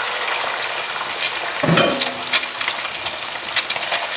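An egg sizzling and crackling in hot oil in a nonstick wok, with a short low sound a little under two seconds in and a wooden spatula starting to stir it near the end.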